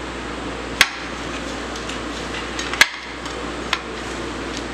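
Hand mixing cut samosa-sheet strips with cornflour on a ceramic plate, with two sharp clicks against the plate about one and three seconds in.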